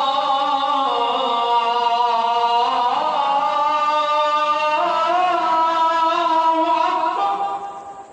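A man's voice chanting the azan, the Islamic call to prayer, in one long held phrase whose pitch steps and glides several times before it dies away near the end.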